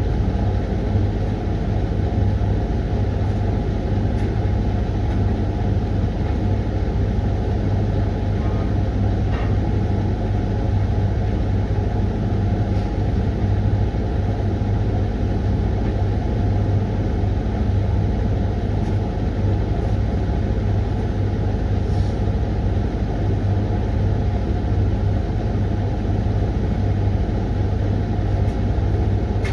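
Hoover washing machine running its 20-minute Refresh programme: a steady low motor hum from the turning drum, with no pauses.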